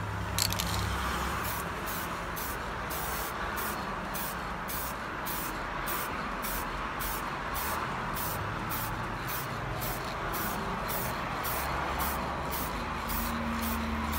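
Aerosol can of Montana Shiny Black acrylic spray paint spraying in one long, steady hiss, starting with a short click as the nozzle is pressed.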